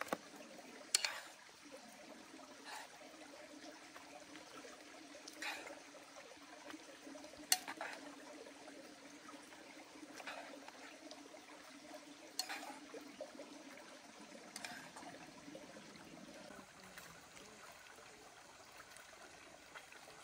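Faint trickling stream water, with about six sharp light taps or clicks spaced a few seconds apart.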